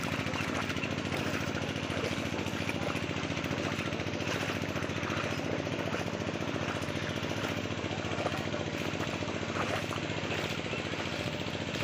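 A steady engine running with a fast, even pulsing.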